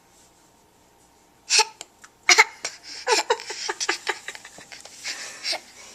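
A child's voice in short, sharp bursts: forced hiccup sounds and giggling, starting about a second and a half in, with a quick run of laughing pulses in the middle.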